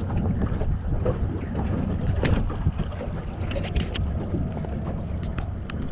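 Small fishing boat moving slowly over the water: a steady low rumble with wind noise on the microphone, and a few short sharp clicks about two seconds in, around three and a half seconds and near the end.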